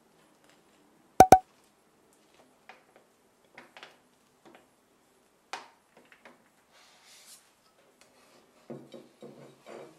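A kitchen knife cutting a cake and knocking on a plate. Two sharp, ringing clinks of the blade on the plate come about a second in, followed by scattered soft taps. Near the end there is a run of quieter scraping taps as the knife is worked against the small plate.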